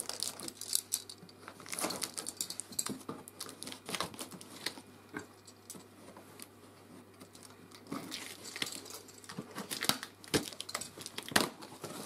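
Box cutter slitting old sellotape along a cardboard box, with irregular scratching, tearing and crinkling. Near the end the cardboard flaps crackle as they are pulled open.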